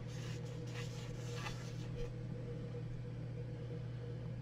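Cloth towel wiping a wet plastic 3D-printed part dry: faint soft rubbing strokes during the first two seconds, then only a steady low hum.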